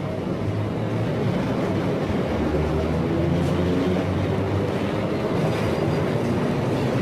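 Steady low rumble of a large vehicle, a recorded transport sound effect played back from a 1963 stereo demonstration LP.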